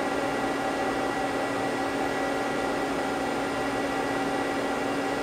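Steady hum of a powered-up Mazak CNC lathe standing idle: fans and motors running evenly, with a few constant tones over a fan-like hiss.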